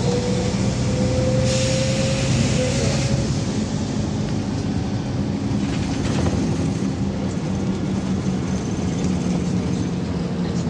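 Cabin sound of a LiAZ-5292.21 city bus on the move: a steady engine and drivetrain hum with road noise. A faint whine rises slightly over the first couple of seconds, and there are brief rushes of hiss about two seconds and six seconds in.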